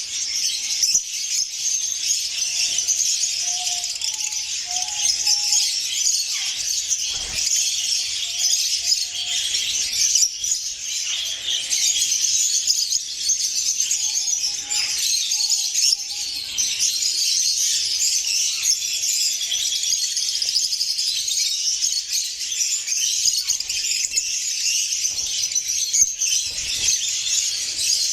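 A flock of small parrots chattering and twittering continuously, many high chirps overlapping into a dense steady chorus.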